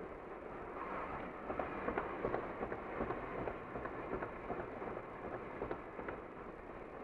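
Car driving at highway speed: steady road and tyre noise, with a run of light, irregular clicks and knocks from about a second and a half to six seconds in.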